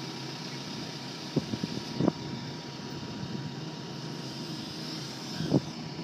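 New Holland B95C backhoe loader's diesel engine running steadily while the backhoe is worked, with a few short low knocks, about a second and a half in, at two seconds and near the end.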